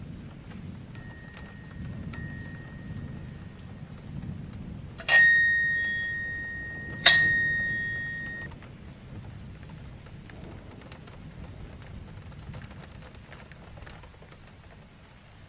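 Metal bell of an old-fashioned mechanical alarm clock struck singly four times: two light dings about a second apart, then two loud strikes about two seconds apart, each ringing on for a second or more. A low rumbling noise runs underneath.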